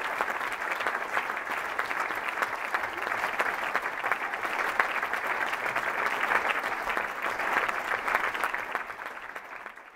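Audience applauding steadily, a dense clatter of many hands clapping, fading out near the end.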